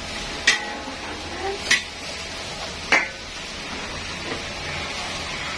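Metal ladle stirring thick coconut-milk curry in a large metal wok, clanking sharply against the pan three times, a little over a second apart, over a steady hiss.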